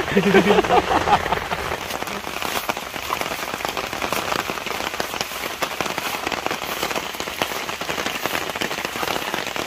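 Steady rain pattering, a dense run of small drop hits with no let-up.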